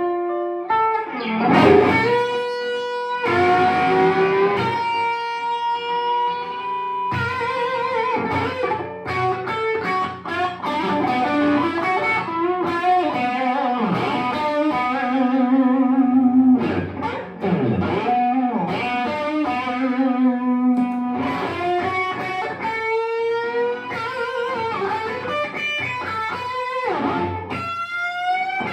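Custom Stratocaster-style electric guitar playing melodic lead lines, with notes bent upward and held with vibrato.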